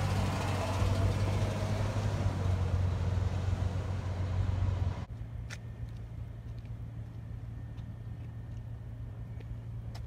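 Road traffic noise: a vehicle engine's steady low hum. It cuts off abruptly about halfway through, leaving quiet outdoor background with a few faint ticks.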